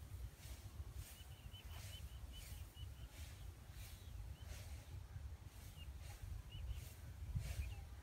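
Wind rumbling on the microphone, with faint birds chirping: a quick run of about eight chirps starting about a second in, then a few scattered single chirps.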